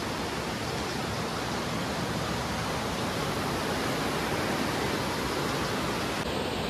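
Steady rushing of a rain-swollen, muddy river running fast.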